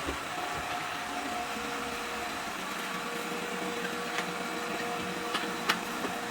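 Deenkee DK650 robot vacuum running steadily, its motor hum carrying a light whine, with a few sharp clicks in the second half and the loudest one near the end.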